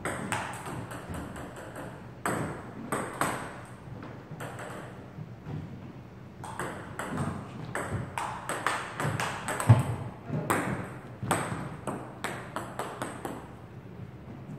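Table tennis rally: the ball clicks quickly back and forth off the rubber paddles and the table in runs of rapid hits, with a short lull around five seconds in. One heavy thump about ten seconds in is the loudest sound.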